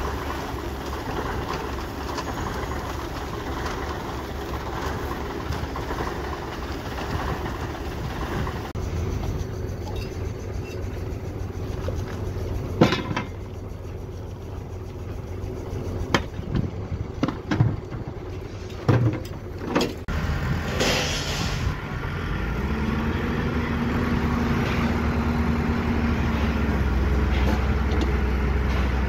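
Diesel engines of heavy construction machinery running: a concrete mixer truck, then an excavator. A few sharp metallic knocks come about halfway through. A steady low hum joins the engine rumble near the end.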